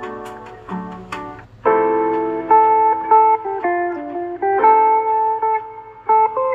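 Samsung Galaxy S21 ringtone melodies: a plucked, harp-like tune fades out, and about one and a half seconds in another plucked, guitar-like ringtone melody starts.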